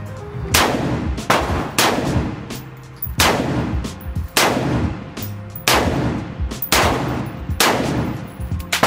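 Foxtrot Mike FM-15 Gen 2 buffer-less AR-15-style rifle firing unsuppressed: about nine shots, irregularly spaced, each with a booming echo off the walls of an indoor range.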